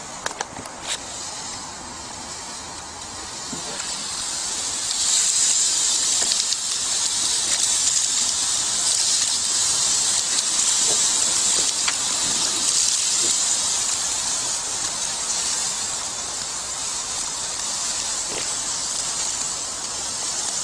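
Sausages sizzling on a gas grill: a steady hiss that swells about four seconds in and holds. A couple of sharp clicks come in the first second.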